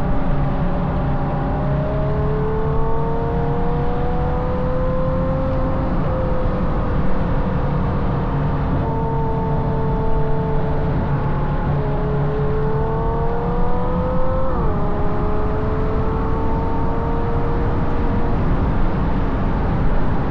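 Ferrari GTC4Lusso's V12 with a Capristo exhaust, driven at part throttle: the engine note climbs slowly and drops suddenly several times, most clearly about fifteen seconds in. Heavy low road and wind rumble runs underneath.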